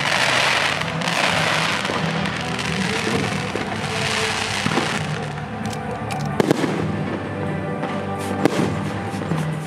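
Aerial fireworks bursting overhead: waves of dense crackle and hiss from the shells, strongest in the first two seconds and again around four seconds in, with sharp bangs about six and a half and eight and a half seconds in.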